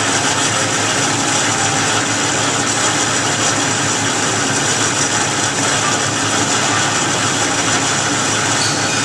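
Metal-cutting vertical bandsaw running steadily, its blade working down through a metal workpiece.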